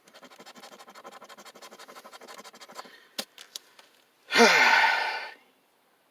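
Rapid scratching strokes on a scratch-off lottery ticket for about three seconds, then a couple of sharp clicks. About four seconds in comes a loud sigh with a falling pitch, the loudest sound here.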